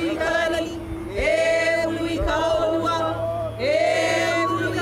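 A group of voices singing in unison in long held notes, with a new phrase starting about a second in and another near four seconds.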